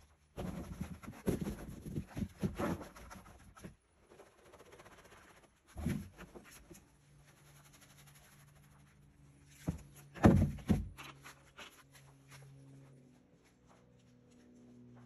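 Scraping, knocks and thumps of plastic buckets and a plastic mixing tub being handled, in short irregular bursts, the loudest thump a little after the halfway point.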